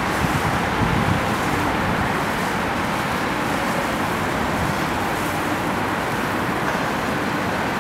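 Steady running of a passing center-console boat's Mercury outboard motors, mixed with the wash of its hull through the water.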